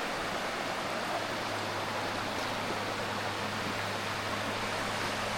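Steady rushing of a mountain stream, an even hiss of flowing water.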